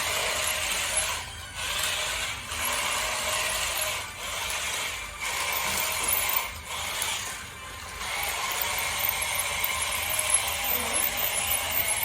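Small electric motors and plastic gears of toy RC vehicles whirring with a steady whine, stopping and starting every second or so, then running on steadily over the last few seconds.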